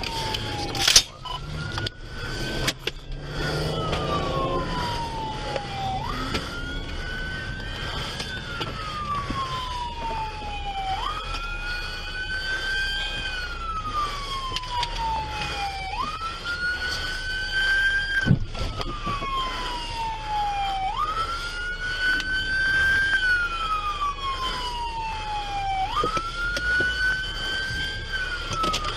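Police car siren on a slow wail, each cycle rising for about two seconds and falling for about three, repeating about every five seconds. A second, fainter and higher siren wails alongside. A couple of sharp knocks come about a second in.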